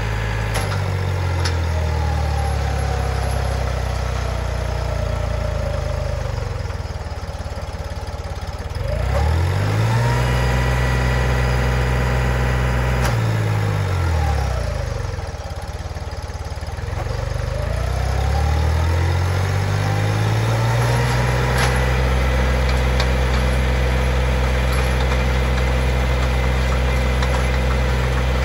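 John Deere compact tractor's diesel engine driving a 3-point hitch post hole auger through the PTO. Its pitch sags twice and climbs back up, then holds steady, as the engine labours under the auger biting and pulling itself down into the clay.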